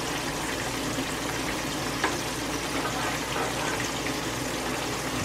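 Chicken pieces deep-frying in a skillet of hot oil, a steady sizzle and bubble, while a slotted spoon stirs cream sauce in the pan beside it, with a light click about two seconds in.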